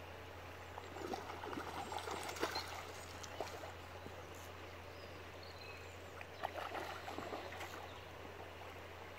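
Hooked trout splashing and thrashing at the surface as it fights the line, in two bouts: one about a second in, another past the middle.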